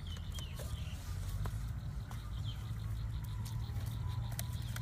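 A bamboo trap and cage being handled, with light scattered clicks and rattles over a low steady rumble, and a few short high falling chirps.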